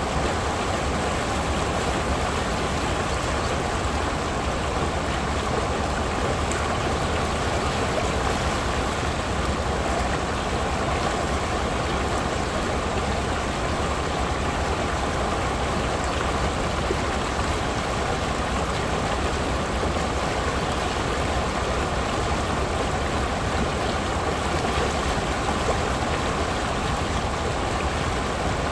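Shallow creek water rushing steadily over a rock ledge and breaking into a small white-water riffle.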